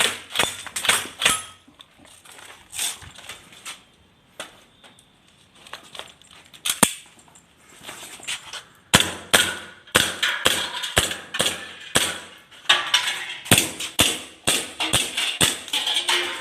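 Airsoft BB guns firing in a skirmish: sharp pops, a quick cluster at first, then a few scattered shots, then dense rapid strings of shots from about nine seconds in.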